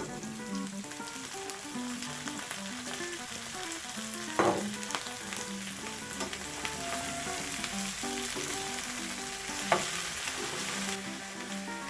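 Food sautéing in a hot pan, sizzling steadily as it is stirred, with two sharp knocks about four and ten seconds in.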